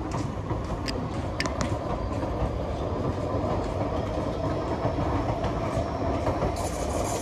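An SMRT C151B metro train departing and running past on the track, a steady rumble of wheels on rail. A few sharp clicks come about a second in.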